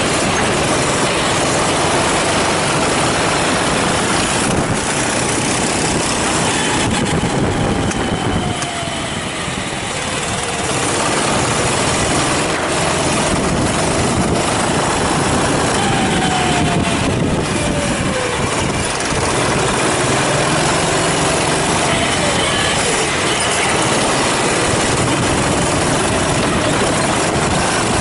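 Racing kart engine running hard on track, its pitch falling as it slows for corners, twice, and climbing again as it accelerates away, over a constant rushing noise.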